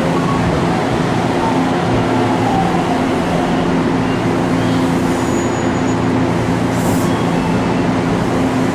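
Electric commuter train at a station platform, giving a steady low hum of several unchanging tones over a constant rushing noise, with a faint short high beep about five seconds in.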